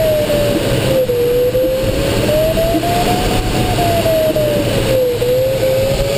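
Glider cockpit audio variometer giving one continuous tone that slowly rises and falls in pitch, following the glider's changing climb or sink, over steady airflow noise around the canopy.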